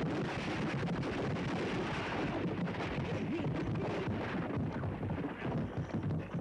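Film sound effect of a brick wall being smashed through: a loud, dense crashing rumble of breaking masonry and falling rubble. It becomes patchier and more uneven after about four and a half seconds.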